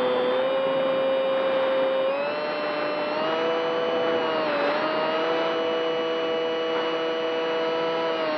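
RC model airplane's motor and propeller heard from a camera on board: a steady whine over rushing air. The whine steps up in pitch about two seconds in, dips briefly near the middle, then holds.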